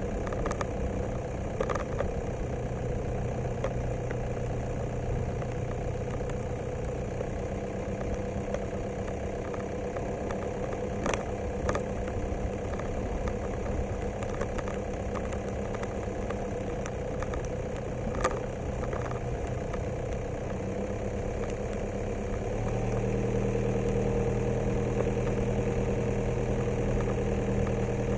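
Vehicle engine running steadily while driving along a dirt track, with a few sharp knocks and rattles. The engine hum gets louder about three-quarters of the way through.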